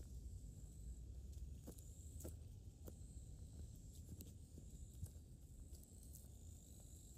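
Faint footsteps of a hiker walking a mountain trail, a soft step every half second or so, over a low steady rumble and a faint high-pitched whine.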